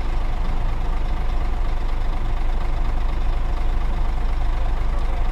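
Scania truck's diesel engine idling steadily, a constant low hum heard from inside the cab.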